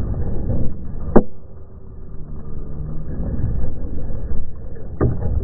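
Low rumble in the wake of a tannerite explosion, broken by two sharp cracks, the first about a second in, the second near the end.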